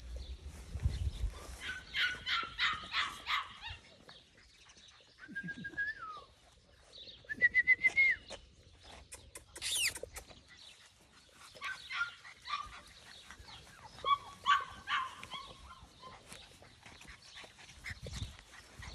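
Yellow Labrador puppies giving short high yips and whines in scattered bursts a few seconds apart, mixed with birds chirping, including a quick high sweep about ten seconds in.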